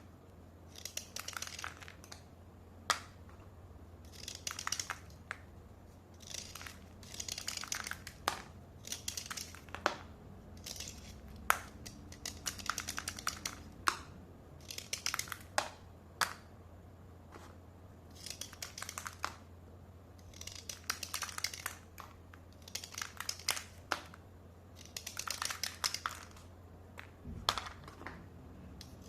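Slate pencils being dry-scraped: short bursts of gritty scraping come every one to two seconds, with sharp clicks in between. There is a low thump near the end.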